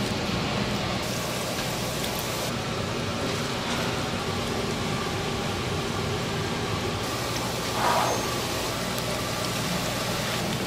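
Steady running noise of a motor vehicle with a low hum, and a brief louder sound about eight seconds in.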